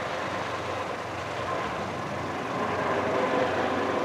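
Steady rumble of an approaching Canadian National freight train led by three diesel locomotives.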